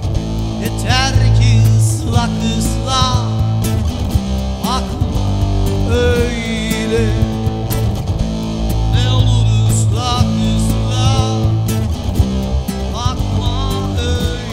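Amplified electro-acoustic guitar playing an instrumental passage of plucked notes over a steady low bass.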